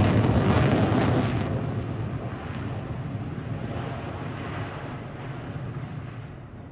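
Jet noise from an F-22 Raptor's twin Pratt & Whitney F119 afterburning turbofans. It is loud and crackling at first, then fades steadily from about a second and a half in as the jet flies away, the high end dropping out first.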